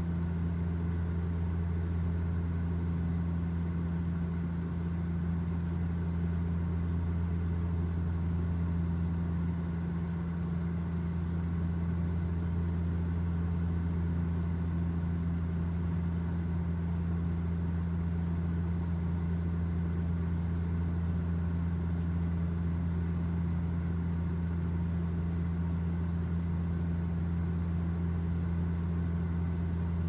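Bombardier Q400 turboprop airliner's twin Pratt & Whitney PW150A engines and propellers running steadily, a constant low hum with no change in pitch or level.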